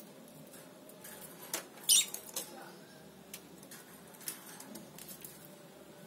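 A caged lovebird gives one short, high chirp about two seconds in, falling in pitch, with a few faint clicks around it.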